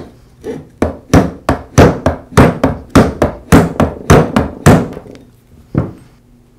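Rubber mallet tapping the end of a Porter Cable 690 router's armature, driving its shaft into the new lower bearing in the aluminium motor housing: a quick run of even taps, about three a second, then a pause and one last tap near the end.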